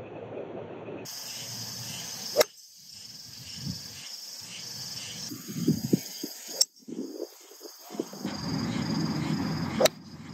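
Golf club striking the ball three times, sharp cracks a few seconds apart, the later two from full iron swings. Steady insect chirring runs underneath, with low wind noise.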